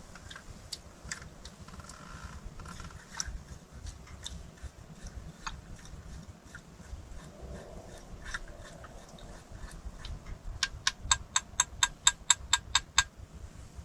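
Scattered small clicks and knocks, then a quick run of about a dozen sharp, even taps, roughly six a second, over a low steady rumble.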